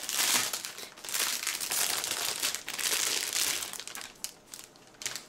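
Cellophane wrap crinkling as it is peeled off a spiral-bound planner: a run of crackly rustles that dies down about four seconds in.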